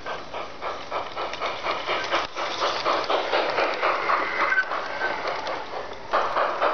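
G scale model steam locomotive chuffing in a steady rhythm, about four to five chuffs a second, as the train runs along garden railway track. It grows louder from about two seconds in as the cars pass close by.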